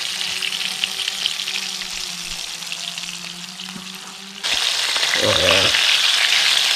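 Battered bluegill deep-frying in hot oil, a steady sizzle that suddenly gets louder about four and a half seconds in.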